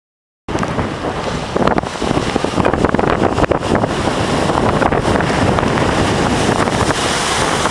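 Strong typhoon wind buffeting the microphone over large waves surging in, cutting in abruptly about half a second in and staying loud with irregular gusts.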